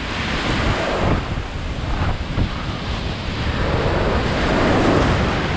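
Ocean surf breaking and foaming up the sand around the waders' legs, with wind buffeting the microphone. The wash swells loudest in the last couple of seconds.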